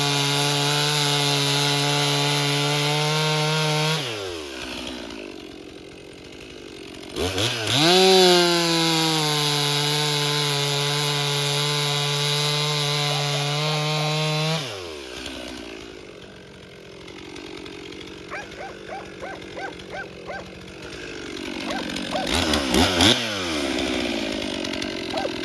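Stihl MS 362 C two-stroke chainsaw cutting an oak log at full throttle, dropping to idle about four seconds in, then revving up again for a second cut of about seven seconds. It then falls back to idle, with a series of small knocks and a brief rev near the end.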